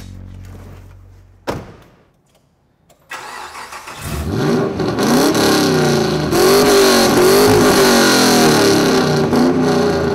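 A car door thuds shut, then a Toyota 80 Series Land Cruiser engine starts about three seconds in and is revved up and down several times through its freshly fitted Redback Extreme custom exhaust.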